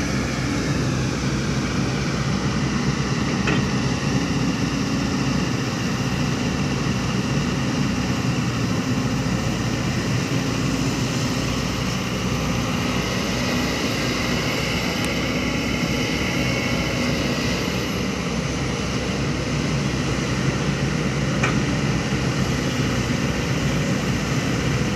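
Heavy construction machinery's diesel engine running steadily under load, with faint whining tones that slowly rise and fall in pitch.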